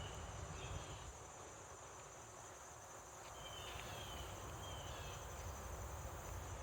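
Insects calling: a steady high trilling with short chirps repeating every few seconds, over a low rumble.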